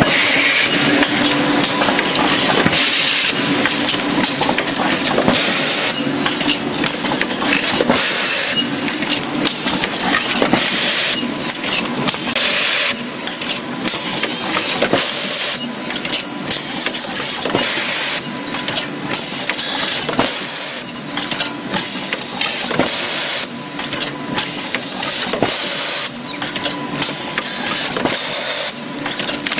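Rotary pick-fill-seal pouch packaging machine with auger filler running: a dense, continuous mechanical clatter of its gripper arms, springs and indexing table, with many sharp clicks and knocks over a faint steady whine.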